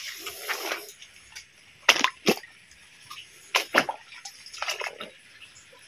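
Feet splashing through a shallow, rocky creek: several separate sloshing steps, some in quick pairs, over the faint running of the water.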